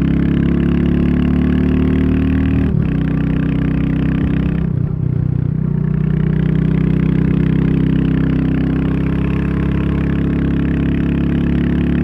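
Royal Enfield Classic 350's single-cylinder engine running under way, heard from the rider's seat. The note breaks briefly about three seconds in and dips again around five seconds in, then picks up and holds steady.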